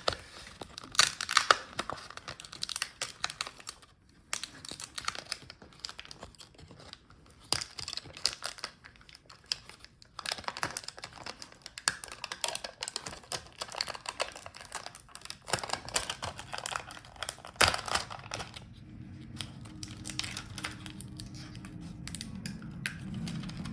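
Irregular clicks, scrapes and crinkles of a small screwdriver and tiny screws being worked out of a laptop palmrest to free the keyboard. A steady low hum joins in for the last several seconds.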